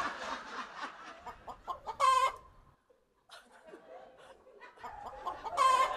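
Two short, high chicken squawks, about two seconds in and again near the end, with scattered laughter from a studio audience.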